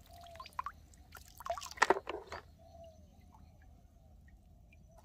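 Water splashing and dripping as a plastic toy bus is rinsed in shallow stream water and lifted out, with the loudest splashes about two seconds in, then quieter.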